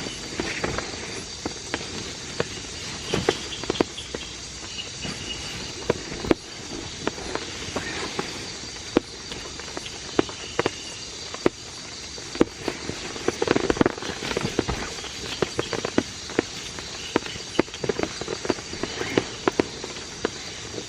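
Steady rain falling, with big drops tapping sharply and irregularly on a nearby surface, several a second in places.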